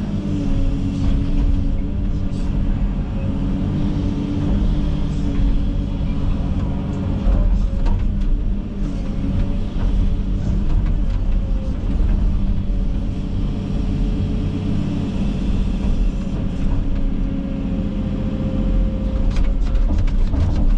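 Komatsu 360 excavator's diesel engine and hydraulics running steadily, a constant hum with a few scattered knocks, as it rakes and piles brush.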